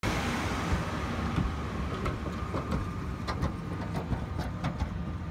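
Large four-wheel-drive tractor's diesel engine running as it tows a Landpac impact compactor over sand, with scattered clanks and knocks from the rolling non-circular steel drums and their frame.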